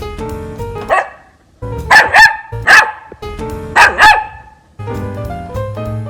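Young puppy, a nine-week-old staffie and Galician hound cross, barking about six short, high barks in two clusters between about one and four seconds in, over jazz background music with drums and piano.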